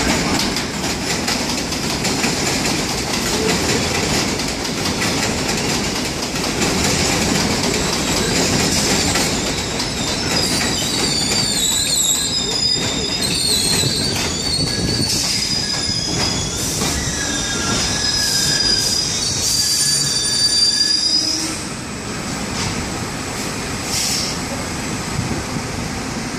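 An R62A subway train running into an elevated station: steady rumble and clatter of steel wheels on the rails. High, wavering wheel squeal joins it from about ten seconds in, fading at about two-thirds of the way through as the sound drops a little.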